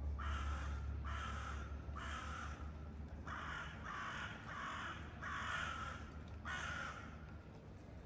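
A crow cawing, about seven caws in a row, each about half a second long, over a low steady rumble.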